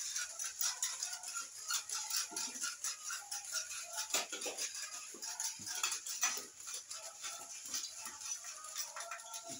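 Battery-powered walking toy horses running: rapid plastic clicking and rattling of their motorised walking legs, mixed with the toys' built-in electronic animal-call sounds.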